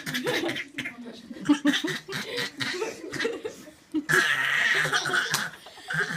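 People laughing in several bouts, with the longest and loudest burst about four seconds in.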